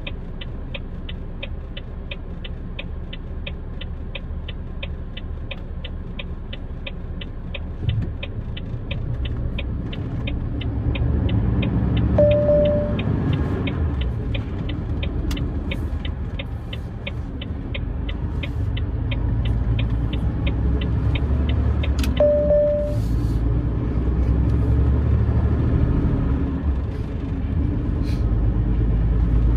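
A truck's diesel engine idles at a junction, then pulls away and rises in level from about eight seconds in. The turn indicator relay ticks steadily at about two and a half ticks a second and stops about two-thirds of the way through. A short dashboard beep sounds twice, first near the middle and again as the ticking stops.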